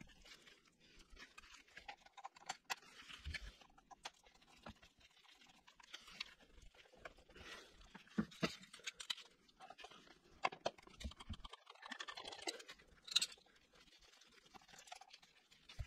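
Hand tools and sockets being handled on a motorcycle's engine by its front sprocket cover: scattered metallic clicks, taps and light scrapes, irregular throughout, with a few sharper clicks.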